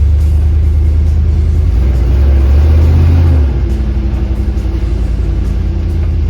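Dodge 440 big-block V8 running under way, a deep low exhaust note that builds louder and climbs slightly about two seconds in, then drops back suddenly about three and a half seconds in as the throttle is eased off.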